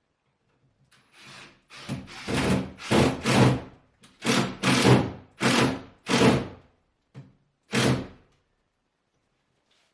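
Power drill run in about ten short bursts while drilling into the stone wall to set anchors.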